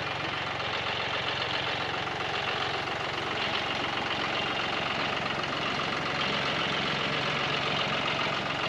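John Deere 5055 tractor's diesel engine running steadily at an even speed.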